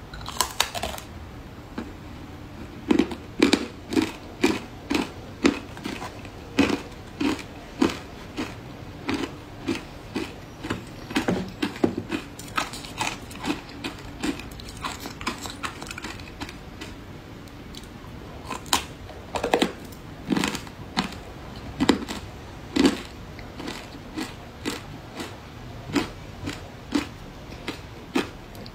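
Thin sheets of ice coated in matcha powder being bitten and crunched in the mouth: a string of sharp crunches, about one to two a second, with a short lull partway through.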